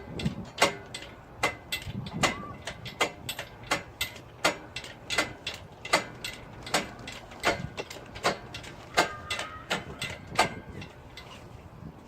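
Repeated sharp metallic clicks or clinks, about two to three a second in an uneven rhythm, some with a short ring, from hand work on the engine during its removal.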